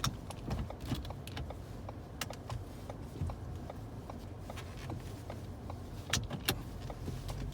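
Inside the cabin of a 2014 Ford Escape moving off at low speed: a steady low rumble, with many small clicks and rattles and a few sharper ones.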